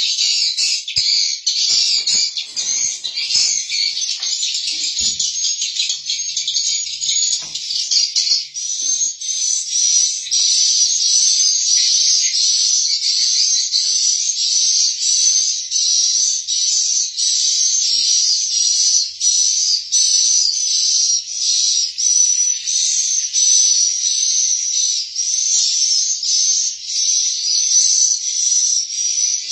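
Edible-nest swiftlet calls: dense, continuous high-pitched chirping and twittering, with a rapid rising note repeating in a steady pattern.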